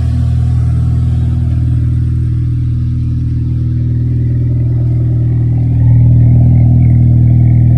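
Audi A4 B8's turbocharged four-cylinder TFSI engine idling steadily shortly after a cold start, its exhaust running through a freshly hand-machined downpipe meant to cure an exhaust leak. It gets louder about six seconds in.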